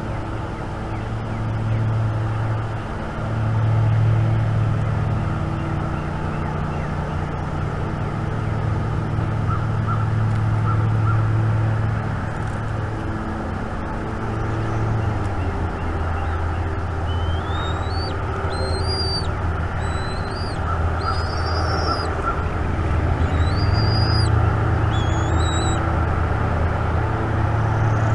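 Steady low outdoor rumble, with a small songbird singing short rising whistled phrases about once a second in the second half.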